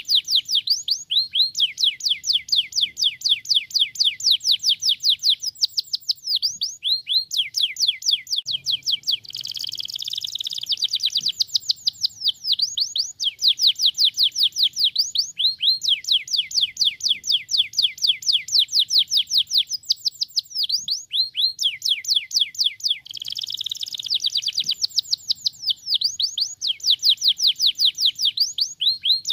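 Domestic canary singing: rapid trills of repeated falling notes, switching to a new phrase every few seconds, broken twice by a short harsher roll.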